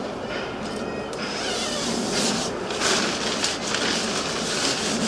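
The zip of a nylon inner tent door being run open, then the tent fabric rustling as the door panel is pulled aside.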